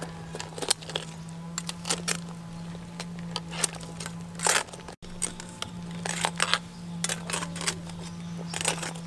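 Metal tongs clicking and clanking against a cooking pot and lobster shells as whole spiny lobsters are turned in boiling water, in quick irregular knocks over a steady low hum.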